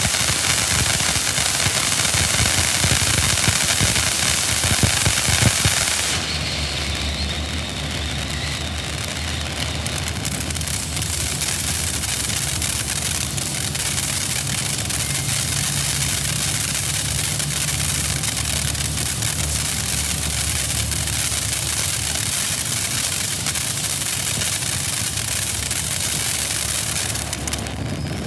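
Black Cat 3 Minute Fountain, a ground firework fountain spraying sparks: a loud, steady hiss with rapid crackling. About six seconds in, the hiss turns less sharp and a low steady hum comes in underneath.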